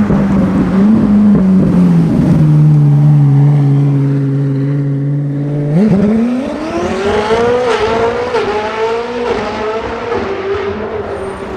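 Koenigsegg Jesko Attack's twin-turbo V8 holding a low, steady note, then accelerating hard about six seconds in. Its pitch climbs quickly, stepping through several fast upshifts.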